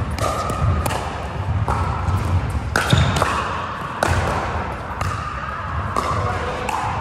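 Pickleball paddles striking a hollow plastic ball in a rally, a string of sharp, irregularly spaced pops that echo in a large indoor hall.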